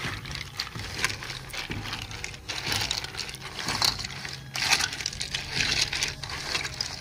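Ice cubes clinking and crunching in a stainless steel bowl as a hand pushes them down over raw meat: irregular cracks and clicks over a low steady hum.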